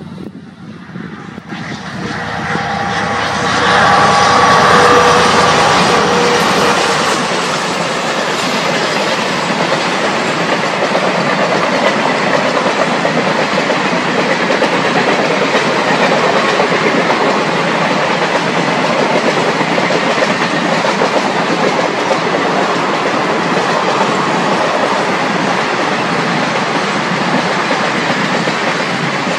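WDP4D diesel locomotive passing close by, loudest a few seconds in, followed by its long train of passenger coaches rolling steadily past on the rails.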